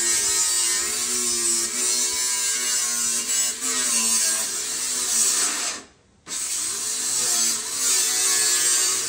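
Handheld power drill running under load, its pitch wavering up and down, breaking off for a moment about six seconds in.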